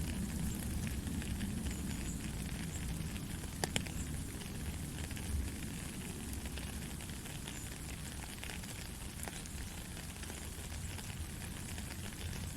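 Steady rain falling, an even hiss with a low rumble beneath it, and a single sharp tap a little under four seconds in.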